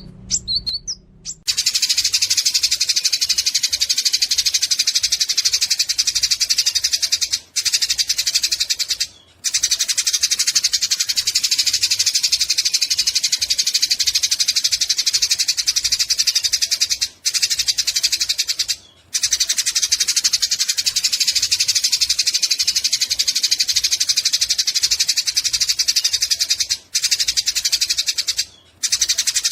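Eurasian tree sparrows chattering while fighting: a dense, rapid, high-pitched chatter. It starts about a second and a half in and breaks off briefly several times.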